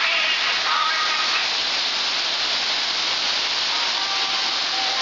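Waterfall pouring down a rock face: a steady rushing hiss of falling water.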